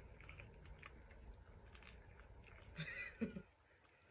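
Faint chewing of someone eating: small wet clicks and crunches, with a short hum-like voice sound a little after three seconds in.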